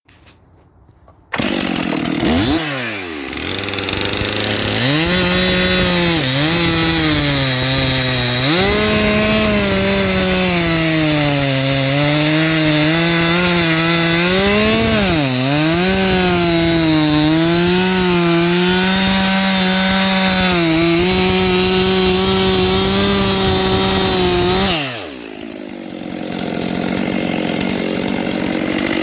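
Two-stroke chainsaw, likely a Stihl, bursting into sound about a second in and then running at high revs through a long cut in firewood, its engine pitch sagging and recovering as the chain bites into the wood. Near the end it drops back toward idle, then revs up again.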